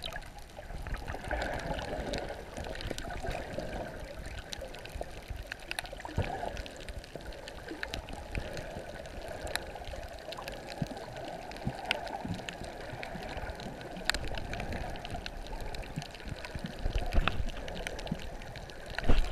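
Muffled water sound heard through a submerged camera: a steady wash with many small scattered clicks and crackles, growing louder and rougher with splashing near the end as the camera comes up near the surface.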